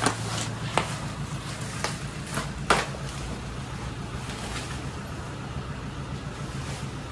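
Bubble wrap and plastic packaging rustling and crackling as a car dashboard is handled in its wrapping, with several sharp crackles in the first three seconds and softer rustling after. A steady low hum runs underneath.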